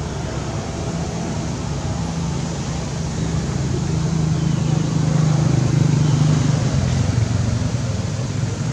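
Low engine hum over steady background hiss, swelling about halfway through and easing near the end.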